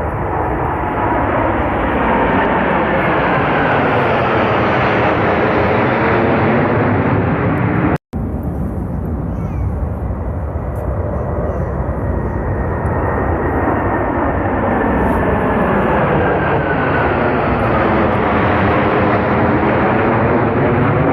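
Military jet aircraft flying low overhead: loud jet engine noise that swells and fades with a slowly falling whine as the aircraft pass. It breaks off suddenly about eight seconds in, and a second pass of the same kind follows.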